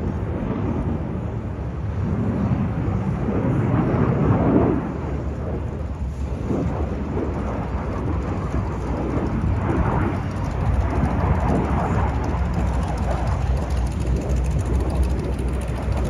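Jet noise from a Lockheed Martin F-22 Raptor's two Pratt & Whitney F119 afterburning turbofans as it flies past: a heavy, low rumble that swells about four seconds in and again around ten to twelve seconds.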